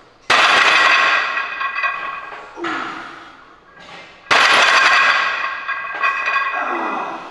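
A heavily loaded barbell in a power rack set down onto the safety pins twice, about four seconds apart. Each is a loud metal clang of bar and plates that rings on for a couple of seconds: repetitions of heavy rack pulls.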